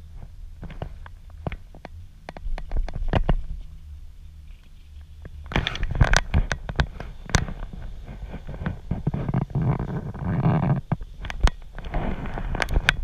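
Skis sliding and scraping over hard, bumpy spring snow during a downhill run, with sharp clicks and crackles and a low wind rumble on the microphone; the scraping gets louder and denser about five seconds in.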